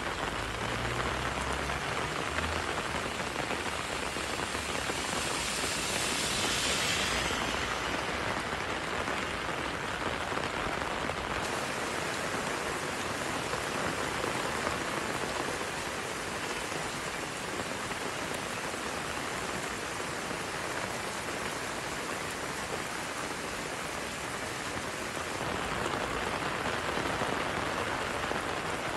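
Heavy rain pouring onto a paved street: a dense, steady hiss of falling water, swelling briefly louder and brighter about six seconds in.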